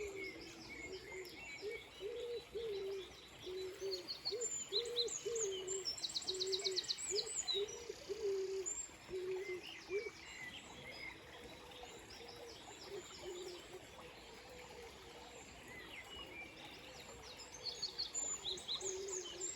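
Dawn chorus of songbirds: many high chirps and quick rapid trills, busiest about a third of the way in and again near the end. Beneath them a low, repeated cooing or hooting call runs through the first half and returns briefly later.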